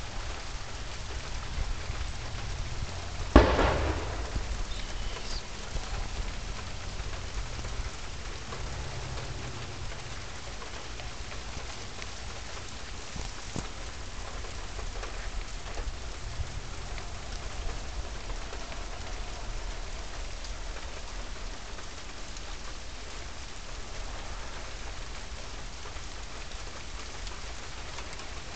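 Steady rain falling, with one sharp clap of thunder about three seconds in that dies away within a second or two.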